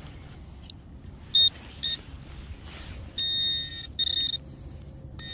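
Metal detector's high-pitched target tone sounding over a buried silver ring: two short beeps, then two longer tones, then a steady tone near the end as the coil sits over the ring. A brief hiss comes in the middle.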